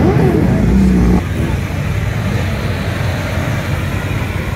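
A group of motorcycles running and revving as they pull away together. About a second in the sound cuts abruptly to a quieter, steady engine rumble with crowd chatter.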